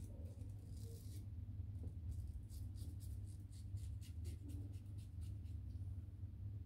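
Razor scraping through lathered stubble in a run of short, quick strokes, about four or five a second, over a faint steady low hum.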